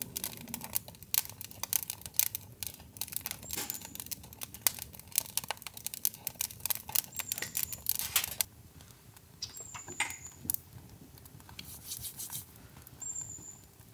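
Dry cedar leaves catching as campfire tinder, crackling and popping densely for about eight seconds, then thinning to scattered pops.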